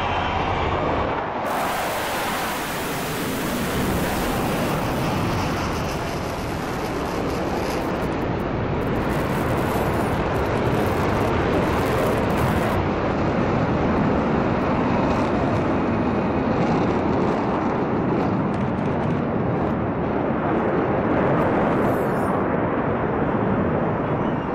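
Fighter jet flying a display pass overhead: a steady rushing jet noise that turns harsher and fuller about a second and a half in and holds on.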